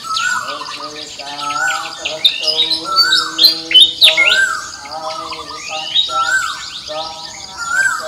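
A busy chorus of birdsong: many quick chirps and whistles, with a harsher squawking call that rises and falls and repeats about every one and a half seconds.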